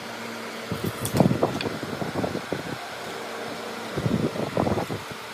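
Tool handling on a pine board on a wooden workbench: short clusters of light knocks and rubbing from a pencil, tape measure and metal square, about a second in and again around four seconds in. A steady machine hum runs underneath.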